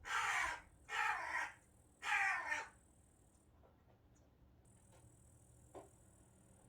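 Pet corvid making three short, harsh caw-like calls about a second apart, each lasting about half a second.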